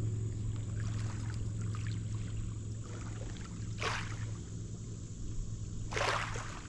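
Water splashing twice, briefly about four seconds in and longer about six seconds in, over a steady low hum.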